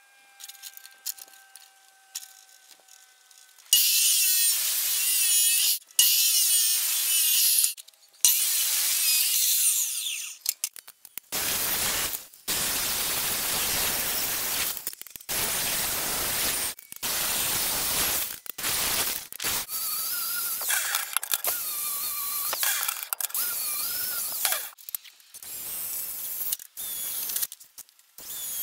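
A string of separate bursts of power-tool work on 1-inch square steel tubing: an angle grinder with a flap disc grinding the steel, then a drill boring into the tube near the end.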